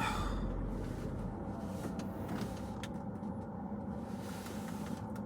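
Steady low hum of a car with its engine running, with a couple of faint clicks about two and three seconds in.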